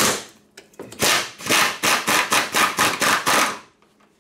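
Air impact wrench hammering in a run of short bursts, about four a second, as it spins off a 12 mm strut-mount nut on top of the strut tower. It stops about three and a half seconds in.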